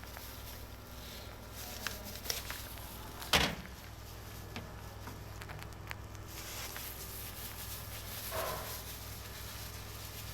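Small clicks and knocks of objects being handled, with one sharp knock about three seconds in, over a steady low hum.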